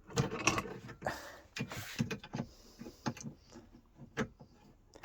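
Pump pliers and a compression nut and olive clicking and scraping against a copper pipe as they are worked off its end, with irregular metal clicks and two longer scrapes in the first two seconds.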